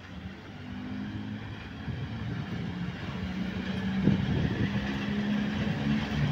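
Several coupled ET22 electric freight locomotives passing at low speed, a low steady hum from their motors and blowers over wheel rumble, growing louder as they draw level.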